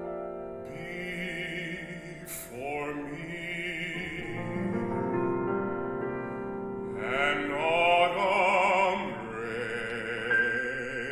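Classical baritone singing an art song with wide vibrato over sustained piano chords; the voice comes in just under a second in and swells on held notes.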